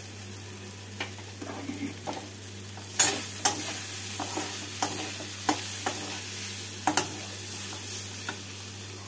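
Steel spatula stirring and scraping mutton keema in a metal kadai over a faint sizzle as the filling is fried dry with breadcrumbs. From about three seconds in, the spatula knocks against the pan roughly twice a second.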